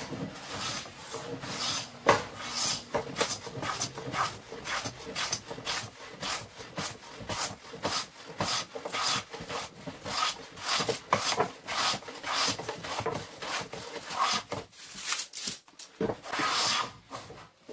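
Western metal hand plane jointing the edge of a board: quick, repeated cutting strokes shaving along the wood grain, about two or three a second, with a longer stroke near the end.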